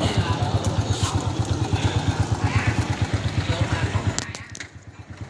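Small single-cylinder four-stroke engine of a Honda Wave-type underbone motorcycle idling with an even, rapid pulse. Near the end it drops away for about a second, with a few sharp clicks, then comes back.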